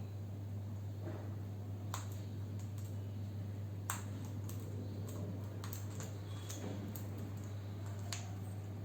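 Light, sharp clicks and taps at irregular moments, about ten of them, the loudest about four seconds in, over a steady low hum.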